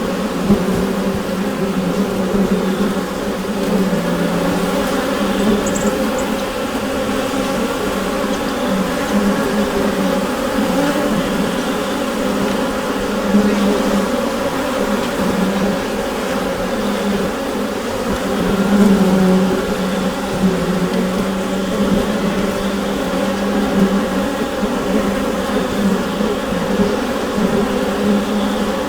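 Honeybee colony humming inside a beehive: a steady, dense buzz of many wingbeats with a strong low hum that swells and eases slightly.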